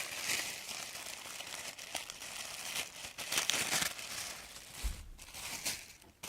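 Packaging crinkling and rustling in irregular bursts as scarves are handled and unwrapped.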